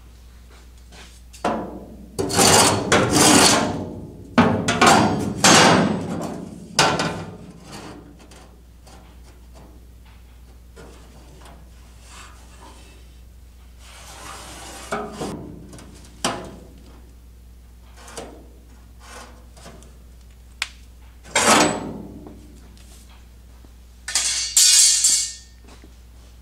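Rasping scrapes and knocks against the sheet-metal wall and floor of a steel pickup bed, several loud scrapes of a second or two each, with quieter knocks and handling sounds between.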